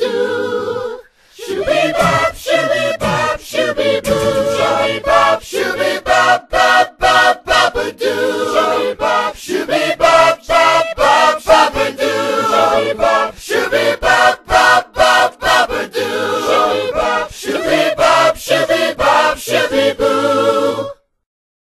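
A cappella group vocals singing nonsense syllables in quick, choppy bursts, cutting off suddenly near the end.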